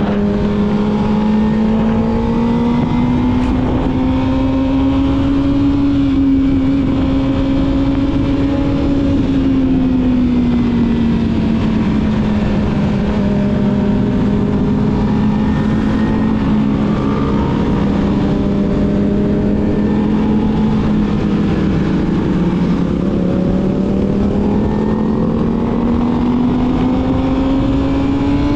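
Yamaha YZF-R6 inline-four engine with a full-system aftermarket exhaust, pulling steadily at mid revs while riding. The engine note climbs gently, eases off about ten seconds in, holds level, then builds again near the end as the throttle opens.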